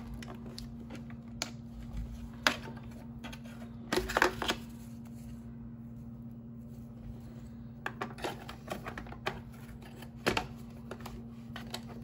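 Hard plastic vacuum parts being handled: scattered clicks and knocks as the floor head of a cordless stick vacuum is turned over and its bristle brush roll is taken out and held up, over a steady low hum.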